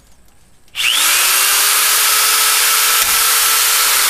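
Electric drill starting up about three quarters of a second in, its motor rising in pitch as it spins up, then running steadily at full speed as a 1/8-inch bit drills out a rivet in a metal computer case.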